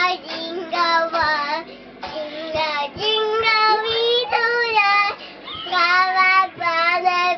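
A young child singing in short phrases with brief breaks between them.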